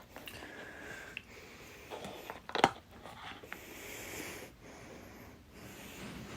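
A person hiccuping: one sharp, loud hiccup about two and a half seconds in, with soft breathing around it.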